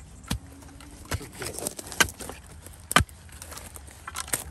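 Spade being driven into the soil of a rabbit burrow: four sharp chops about a second apart, the middle two loudest, with smaller knocks and rustling of undergrowth between.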